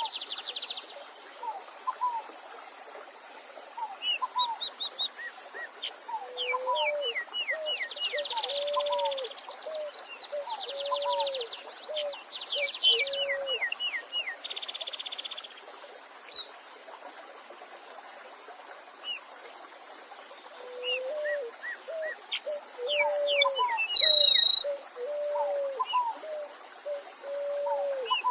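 Several wild birds calling and singing over the steady hiss of a stream. A low, arched whistled note repeats about once a second, with short higher notes, high chirps and fast trills, and a quieter spell in the middle.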